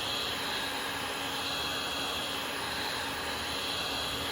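A steady rushing machine noise, like a fan or blower running, with a thin high whine held throughout.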